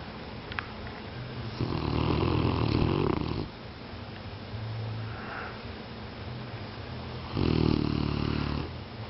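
A Great Pyrenees dog snoring: two long, loud snores about six seconds apart, with a fainter snore between them.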